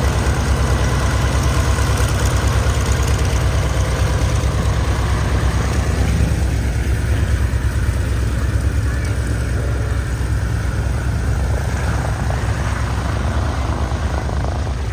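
Piston-engined propeller aircraft flying past, the Lockheed 12A Electra Junior and Spitfire PR.XI formation: a loud, steady engine drone with a fast low pulsing, easing off near the end.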